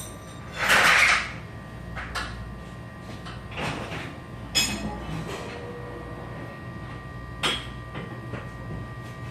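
A short rushing noise about a second in, followed by a few sharp knocks and clunks of metal door hardware, one or two with a brief metallic ring, over a steady hum.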